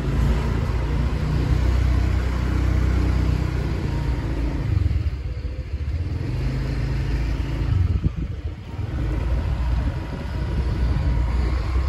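Motorbike riding along a street: its engine running under a heavy low rumble of wind on the microphone, the noise easing off briefly twice.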